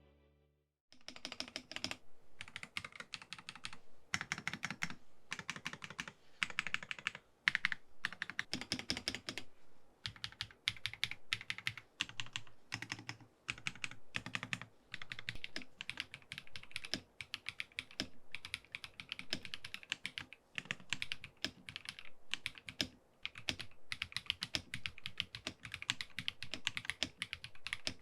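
Typing on an EPOMAKER Aura75 mechanical keyboard fitted with factory-lubed Wisteria linear switches and PBT keycaps: quick runs of keystroke clacks starting about a second in, broken by a few short pauses.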